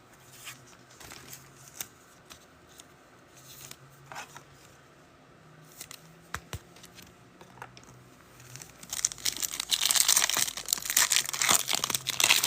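Faint handling clicks of trading cards, then about nine seconds in a card pack's foil wrapper being torn open and crinkled.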